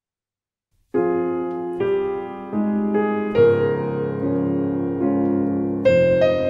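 Piano music: after about a second of silence, slow chords are struck and left to ring, a new chord every second or so.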